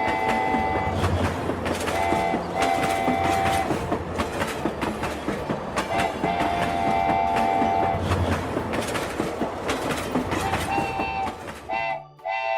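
Train running over rail joints with a steady clickety-clack, sounding its multi-tone horn several times in short and longer blasts.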